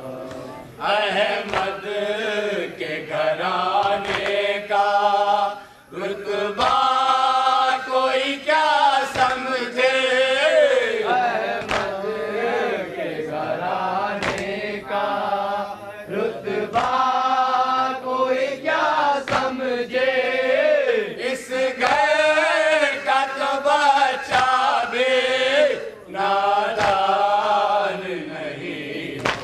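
Men chanting a nauha, a mournful Urdu lament, into a microphone, a lead voice with others joining in, in long sung lines with brief breaks between them.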